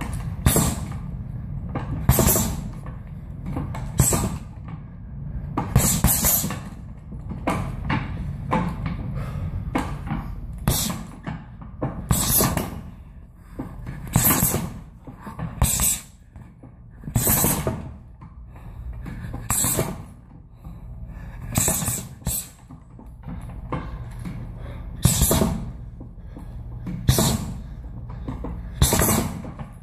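Gloved punches landing on a round heavy bag: sharp thuds at an irregular pace, about one every one to two seconds, some thrown as quick doubles.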